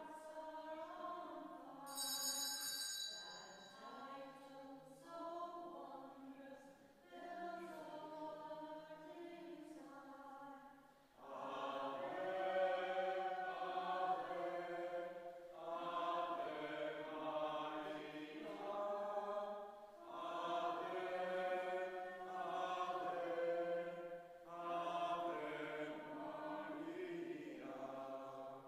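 Congregation singing an entrance hymn in slow, held notes; the singing becomes fuller and louder about eleven seconds in. A brief high ringing sounds about two seconds in.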